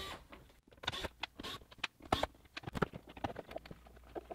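RV wall switch panel being worked loose and pulled out of its cabinet opening: a run of irregular small clicks, taps and knocks from handling the panel.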